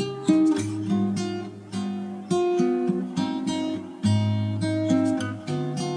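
Background music: a melody of plucked notes, each starting sharply and fading.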